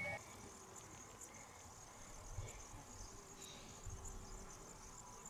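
Insects chirring in grass: a faint, steady high-pitched buzz.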